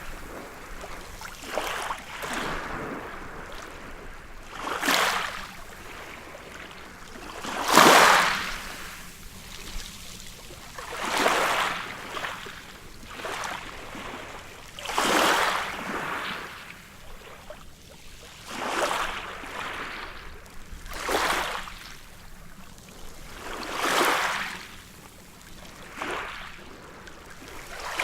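Small waves breaking and washing up on a beach, a rush of surf every two to three seconds, the biggest one about eight seconds in.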